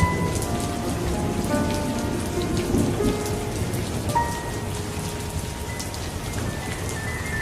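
Steady rain with a low rumble of thunder, over faint music with short held notes.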